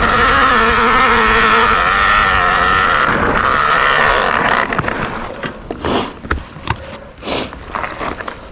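A rear mudguard jammed into the spinning rear tyre of a mountain bike, making a loud, wavering, pitched rubbing noise that cuts off about halfway through. A few sharp knocks and clatters follow as the bike comes to a stop.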